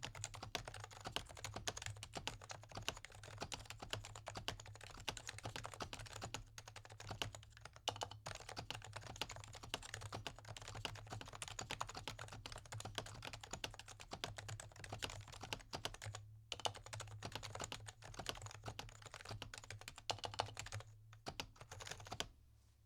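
Fast, continuous typing on a Realforce RF84S Topre keyboard with lubed purple sliders, silencing rings and 45 g domes: a dense stream of keystrokes with a few brief pauses, stopping just before the end.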